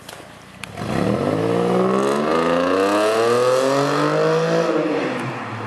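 Mercedes-Benz SL 350's V6 through a custom stainless race exhaust, accelerating hard. The exhaust note comes in loud about a second in, rises in pitch for about three seconds, then drops away as the throttle is eased near the end.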